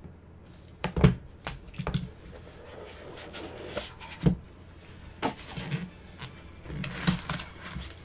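Trading card in a hard plastic holder and a cardboard card box with its foam insert being handled: a run of irregular taps and knocks with rustling between them, the loudest about a second in.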